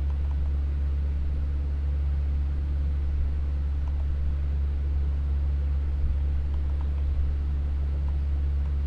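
Steady, loud low electrical hum with a few higher hum tones and a light hiss, the recording's background noise, with a few faint clicks.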